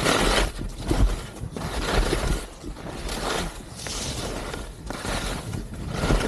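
Skis scraping and carving over firm, packed snow, swelling and fading about once a second with each turn through the moguls, over a low rumble of wind on the microphone.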